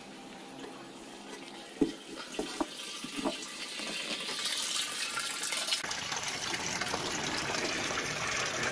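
Water pouring from an inlet pipe into a plastic water tank as it fills, the stream splashing onto the water's surface. There are a few light knocks a couple of seconds in, and the splashing grows louder past the halfway point.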